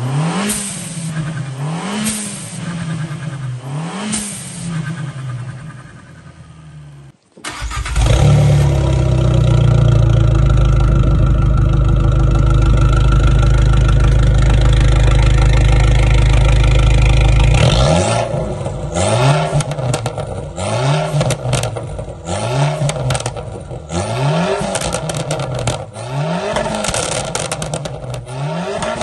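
Stage 3 tuned Abarth 595 turbocharged 1.4-litre four-cylinder being revved through its exhaust in short throttle blips, each a quick rise and fall in pitch. After a brief drop about seven seconds in, it holds a steady, loud note for about ten seconds. Then the quick blips resume, now with crackles on each lift-off.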